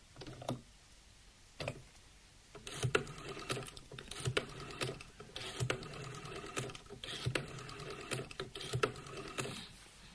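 A telephone receiver handled with a couple of clicks, then a rotary telephone dial being dialled: five or six runs of fast clicking with short gaps between them, as each digit is wound and the dial spins back.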